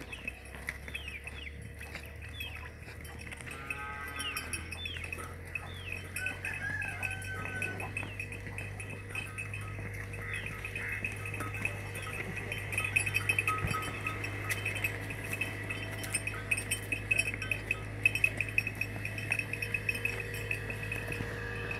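Livestock yard ambience: bells jingling steadily, with a single animal call about four seconds in and small bird chirps, over a steady low hum.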